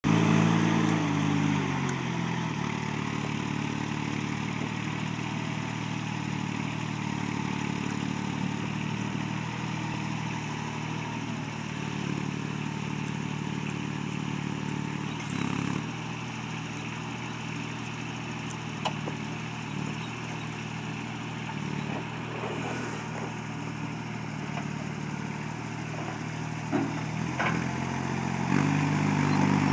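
Moffett truck-mounted forklift's diesel engine working: revved at first, it settles to a steady lower speed within a couple of seconds, with a few metal clanks midway and near the end, then revs up again in the last seconds.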